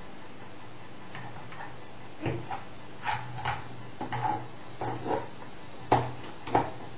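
A dozen or so sharp clicks and knocks at irregular spacing, starting about two seconds in, the loudest near the end, over a steady low hum.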